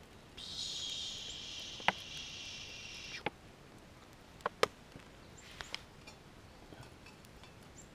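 A stream of water squeezed from a plastic bottle through a squeeze water filter into a pot of dry pancake mix, a steady hiss lasting about three seconds. Afterwards come a few light clicks and knocks as the bottle is handled and set down.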